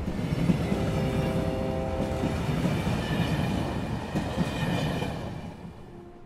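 A low rumbling vehicle noise with a few faint steady high tones above it, fading out near the end.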